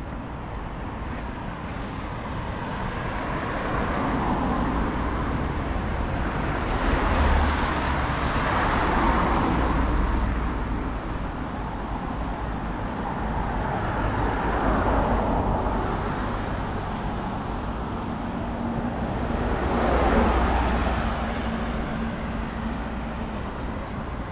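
Cars passing one after another on the bridge roadway, each swelling and fading as its tyre and engine noise goes by; the loudest pass about seven and about twenty seconds in, over a steady low rumble of traffic.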